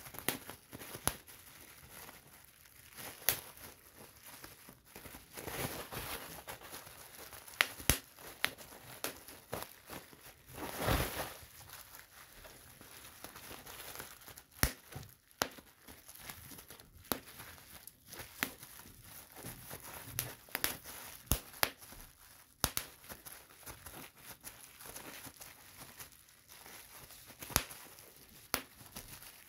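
Plastic bubble wrap being popped by hand: sharp, irregularly spaced pops amid plastic crinkling, with a longer burst of crinkling about eleven seconds in.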